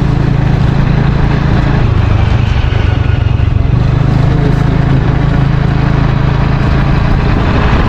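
A small engine running steadily, with a strong low drone under a loud, rushing noise.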